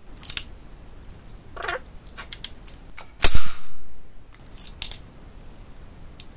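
A single gunshot about three seconds in, a sharp crack with an echoing tail, amid small metallic clicks of a pistol being handled.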